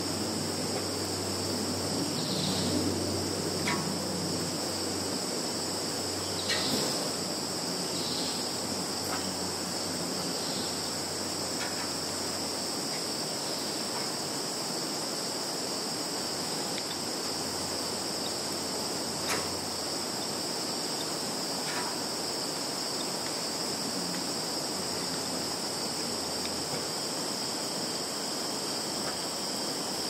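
A dense chorus of field insects singing: a steady, high-pitched, unbroken drone, with a few faint short clicks here and there.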